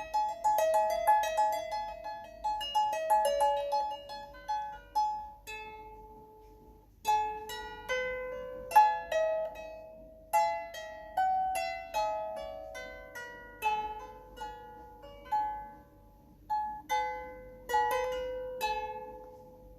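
An 18-string chromatic lyre being plucked: a quick run of notes, then after a short lull about seven seconds in, a slower melody of single notes that each ring and fade.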